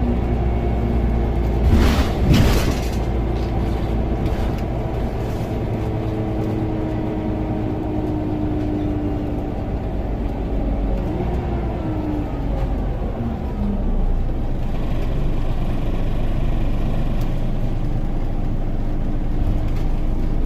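Inside a Scania OmniCity bus: steady engine and road rumble, with two sharp knocks about two seconds in. Around the middle, a whine holds steady for several seconds, then slides up and down in pitch.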